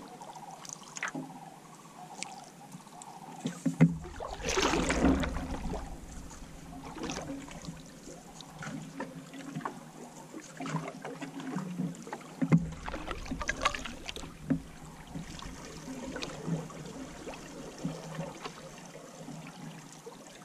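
Canoe being paddled through still water: paddle strokes swishing and dripping, with occasional light knocks against the canoe. A louder rush of noise comes about four seconds in.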